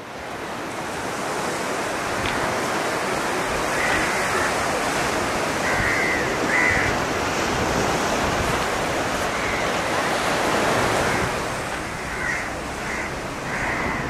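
Steady rush of sea waves and water, fading in at the start, with several short bird calls scattered through it.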